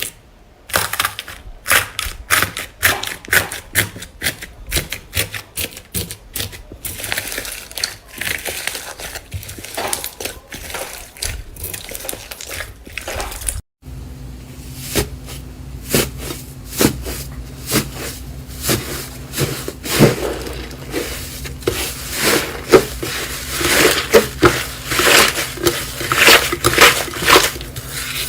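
Slime being squeezed and worked by hand: a rapid run of sticky clicks, pops and crackles. The sound cuts out for a moment about halfway, then the clicking resumes with a faint steady hum underneath and grows denser toward the end.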